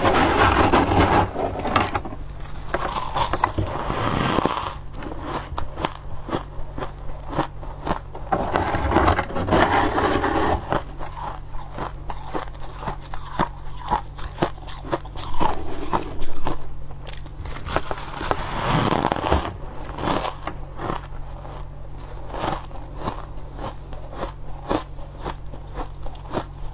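Crushed ice being chewed and crunched, a dense run of sharp, crackly crunches, with a few longer, louder stretches of crunching and scraping near the start, about a third of the way in and about two-thirds through. A steady low hum lies underneath.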